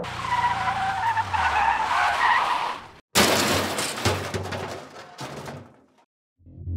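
Skidding, screeching sound effect with a falling low hum. About three seconds in it cuts to a sudden loud noisy burst that fades away over roughly two seconds. Music starts right at the end.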